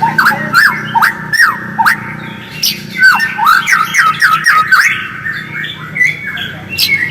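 White-rumped shama (murai batu) calling in a busy, squeaky run: many short notes sliding down in pitch, mixed with thin high chirps, over a faint steady low hum.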